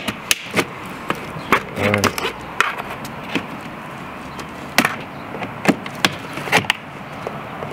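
A multi-tool blade prying at plastic clamps on an engine-bay cable duct cover. About nine sharp plastic clicks and knocks come at uneven intervals, with a brief grunt about two seconds in.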